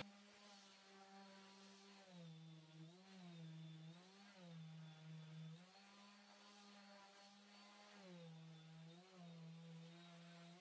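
Random orbital sander running faintly on a wooden cutting board, its motor hum dipping in pitch several times as it is pressed into the wood.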